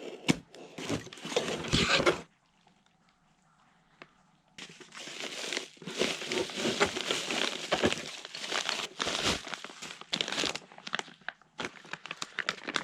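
Packaging crinkling and tearing as a newly delivered parts kit is unwrapped by hand, in two spells with a short quiet pause between them.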